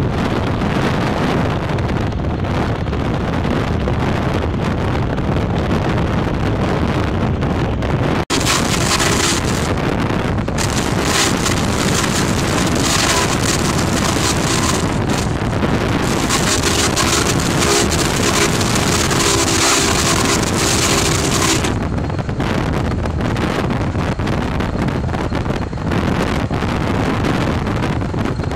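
Steady wind rush and road noise from a car driving at speed. About eight seconds in, the sound cuts and turns brighter and harsher, with a faint held tone. A few seconds before the end it falls back to the duller rush.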